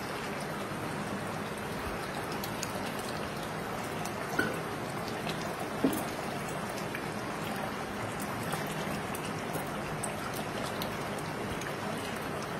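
Thick korma gravy simmering in an open pressure cooker, a steady crackling bubble and sizzle as it cooks down and the oil separates. A spatula knocks briefly against the pot twice, about four and a half and six seconds in.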